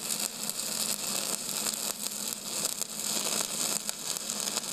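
Steady hiss-like static with a faint low hum and light irregular crackle.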